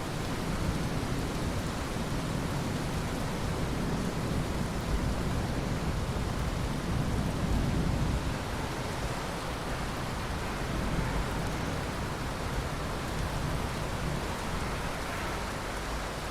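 Steady heavy rain hissing, with a low rumble of distant thunder swelling about halfway through.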